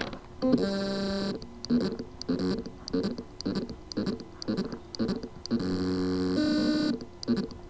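Western Digital WD Green 2 TB hard drive failing to spin up properly: a click, a buzzing tone, then a stuttering run of short buzzes about three a second and another long buzz that shifts pitch near the end. This is the sound of loose spindle-motor contacts on the circuit board: the motor can spin but cannot reach full speed.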